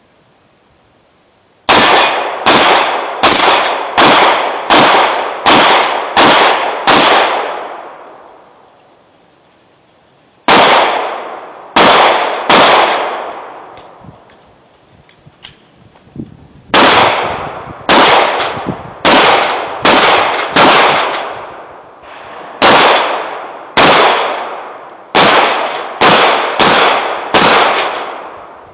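Glock 26 9mm pistol shots fired at a steady pace of a little over one a second, in three strings: about eight, then three, then about a dozen, with pauses between. Steel plates ring with a high metallic clang after the shots.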